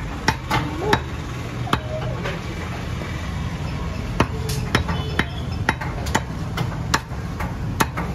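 Heavy butcher's cleaver chopping pieces of goat head on a wooden block: about a dozen sharp, irregularly spaced chops over a steady low hum.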